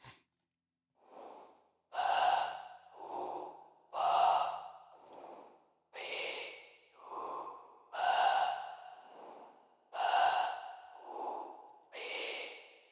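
Artificial breathing synthesized from signal-generator noise and filtered vocalizations shaped by reverb decay, with an added room reverb giving the breath a sense of space. Swelling breaths come in a steady cadence: a strong swell about every two seconds, each trailed by one or two softer ones.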